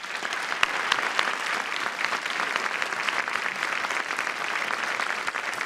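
Large audience clapping: dense, steady applause of many hands.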